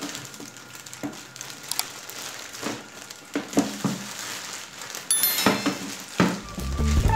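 Clear plastic bag crinkling and rustling as it is handled over a plastic horn speaker. A short high ringing sound comes about five seconds in, and music comes in near the end.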